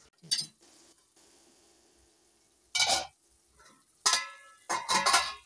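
Steel cookware clattering in a few short bursts as a stainless-steel lid is lifted off a curry pan and the pans are handled, the metal ringing briefly after some knocks.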